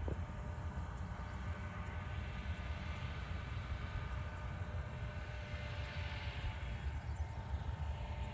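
An engine running steadily: an even low drone with faint steady tones above it.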